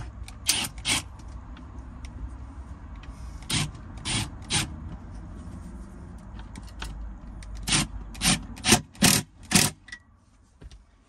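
A series of short, sharp knocks and clatters from fixing a fitting to the van's wall, about ten in all, the last five coming in quick succession. A low steady hum underneath stops about ten seconds in.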